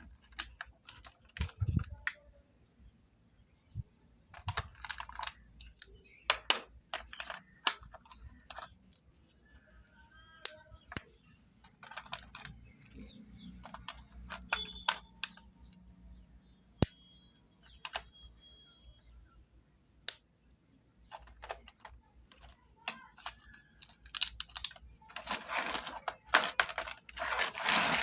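Small plastic toy cosmetics and their packaging being handled: irregular sharp clicks and taps, growing into a dense clatter near the end.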